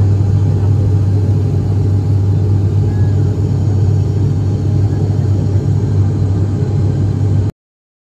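Turboprop airliner's engine and propeller in flight, heard inside the cabin at a window seat beside the propeller: a loud, steady low drone over a rushing roar. It cuts off suddenly near the end.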